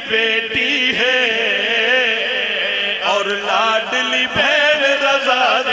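A man chanting a qasida in Punjabi into a microphone, in long, wavering, ornamented sung lines.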